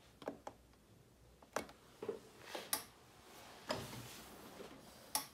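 A series of short, sharp plastic clicks and light taps, irregularly spaced, as a patient monitor's power button is pressed; the first pair comes right after the press.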